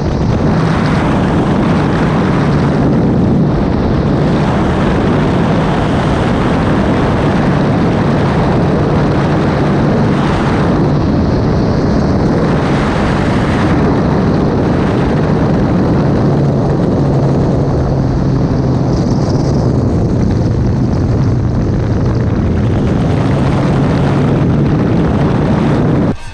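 B-25 Mitchell bomber's twin Wright R-2600 radial engines and propellers droning loudly in a low pass, with a steady low engine tone that swells and eases several times as the aircraft manoeuvres.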